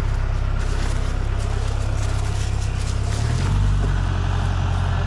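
Engine idling with a steady low rumble, which shifts in pitch about three seconds in.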